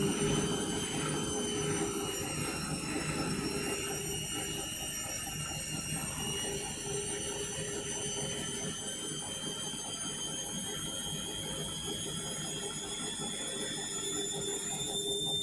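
Indesit washing machine at intermediate spin: a steady, high motor whine that levels off in the first couple of seconds after climbing, over the low rumble of the drum. The whine creeps slightly higher near the end.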